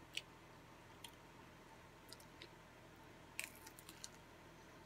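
Faint eating sounds: a few scattered mouth clicks and smacks, then a quick cluster of crisp crackles about three and a half seconds in as a fried egg roll is bitten into.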